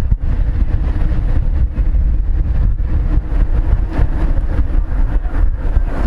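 Wind buffeting the microphone: a loud, uneven low rumble with no clear engine note.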